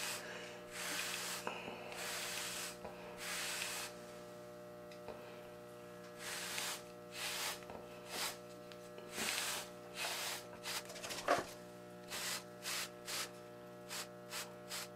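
A Torino Pro medium-hard bristle brush sweeping through short waved hair, a swish with each stroke. The strokes are slow and under a second long at first, then shorter and quicker, about two a second, over the last few seconds.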